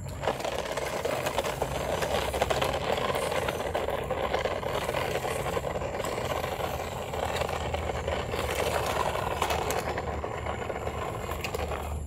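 Small electric motor and gearbox of a toy remote-control off-road car running steadily while it tows a plastic toy dump truck, with the plastic wheels rattling over rough concrete. It cuts off near the end.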